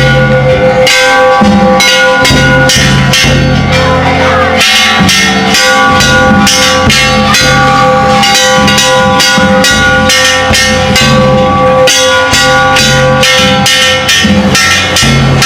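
Ishidori bayashi from a festival cart: a large taiko drum and hand-held bronze gongs (kane) struck hard and fast, several strokes a second. The gongs ring on between strokes.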